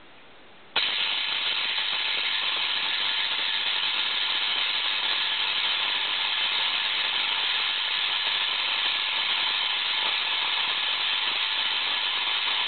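Spark-gap Tesla coil running at its highest power: a steady buzz of the spark gap firing, with streamers coming off the top load, switched on suddenly just under a second in.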